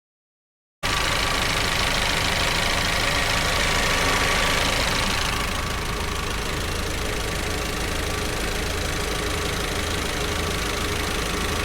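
Audi TT's 2.0 TFSI four-cylinder turbo petrol engine running, with its new coil pack and spark plugs fitted: a low rumble under a broad hiss that eases about five seconds in, with a faint steady whine. The sound starts abruptly just under a second in.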